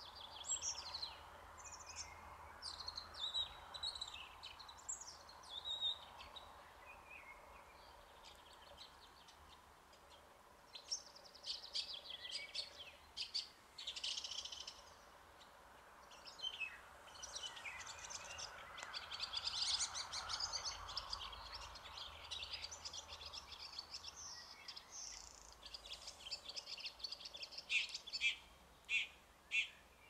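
Red-backed shrike singing its varied, rapid song stitched with mimicked snatches of other birds' calls, in bursts with brief pauses. Near the end the song turns to a string of sharp, separate notes about two a second.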